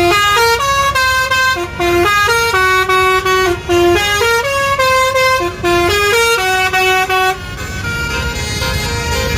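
Basuri 'telolet' musical horn playing a quick tune of short stepped notes, over the low rumble of an engine and traffic; the tune stops about seven seconds in.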